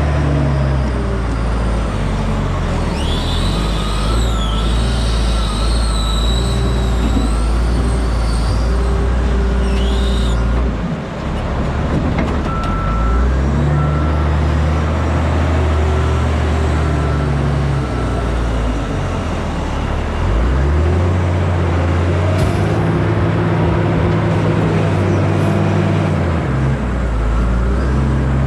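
Tandem dump truck's diesel engine running under load while the truck is driven, with a break in the engine note at a gear change about eleven seconds in and again about twenty seconds in. A high, wavering squeal sounds for several seconds in the first third.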